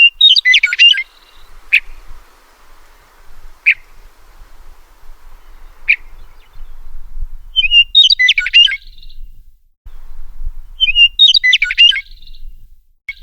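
A meadowlark singing: three jumbled, quick song phrases, one at the start, one about eight seconds in and one about eleven seconds in. Single short, sharp call notes come between the first two phrases, and another phrase begins right at the end.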